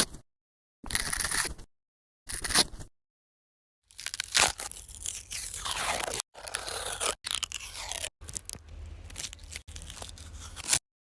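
Crunching, crackling sounds in short edited snippets: three brief bursts cut with dead silence, then a longer run of crunching broken by quick cuts.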